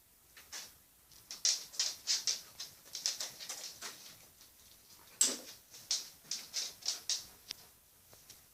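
Young blackbird pecking and scrabbling at small objects: quick irregular light taps and scratches, with one louder knock about five seconds in.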